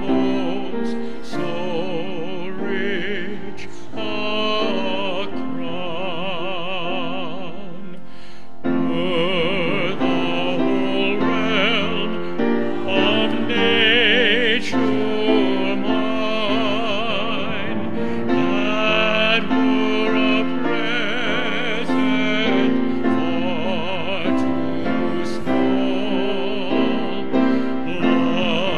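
A hymn sung by a church congregation, led by a solo voice with wide vibrato over sustained accompaniment. The music breaks off briefly about eight seconds in, then carries on.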